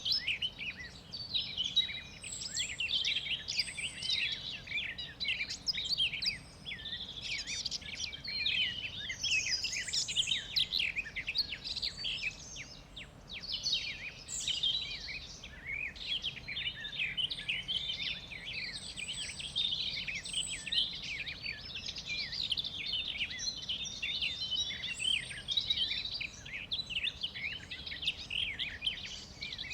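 Many songbirds chirping and singing at once, a dense overlapping chorus of quick, high chirps and trills that never lets up.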